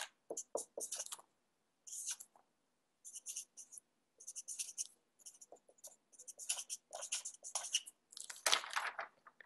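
Pen writing on paper: a faint run of short, scratchy strokes in irregular bursts. Near the end comes a louder paper rustle as the sheet is lifted.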